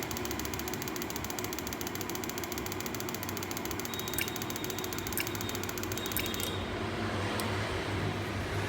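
Ford Focus engine idling steadily, with a fast, fine ticking over it that stops about six and a half seconds in.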